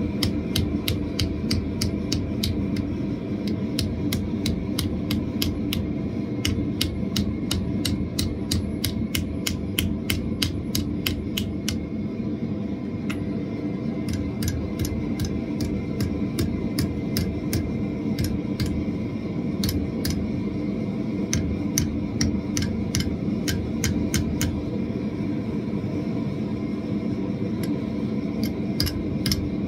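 Hand hammer striking red-hot steel on an anvil, a steady run of about three blows a second that pauses briefly about halfway through and again near the end. Under the blows runs the steady roar of a propane gas forge.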